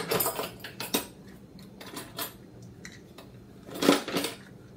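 Kitchen gadgets clattering as they are rummaged through in an open wooden drawer: a few separate knocks and rattles, the loudest a little before the end.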